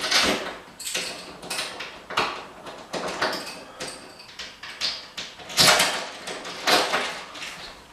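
Irregular short clacks and scrapes from handling the towel rail's metal mounting point and screws against the wall, with the loudest knocks near the end.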